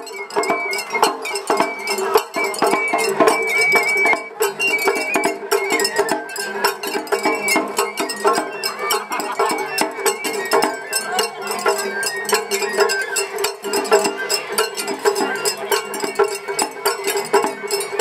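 Japanese festival hayashi music from a parade float: a high bamboo flute melody stepping from note to note over quick, continuous drum and gong strikes.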